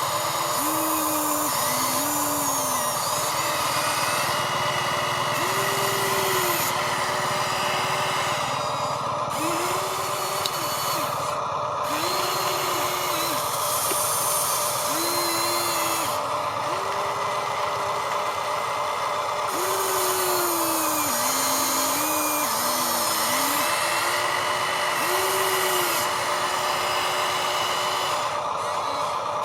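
Small electric motors and gearboxes of toy-grade RC construction machines whining. One steady whine runs throughout, while a second motor tone starts and stops every second or two, rising as it spins up and sagging under load.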